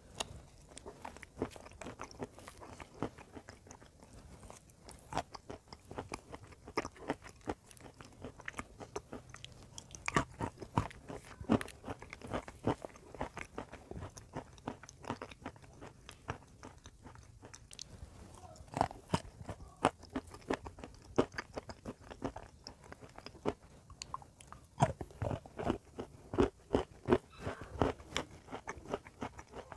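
Close-up chewing of dry, crumbly chalk-like chunks: many crisp crunches, several a second, in an irregular run that grows denser and louder in a few spells, the last near the end.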